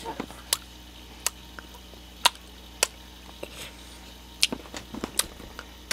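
About a dozen sharp taps at uneven intervals, the loudest about two and four and a half seconds in.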